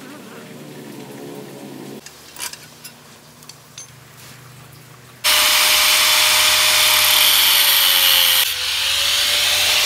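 Angle grinder with a cutting disc cutting through the steel pedal-mounting bracket, starting suddenly about five seconds in. It makes a loud, steady hiss of cutting under a single held motor whine, which dips briefly and then carries on. Before it, small clicks of the metal pedal assembly being handled.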